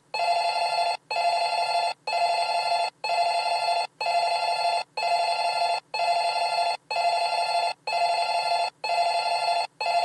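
Electronic buzzer tone sounding in long, even pulses, about one a second, with a short break between each.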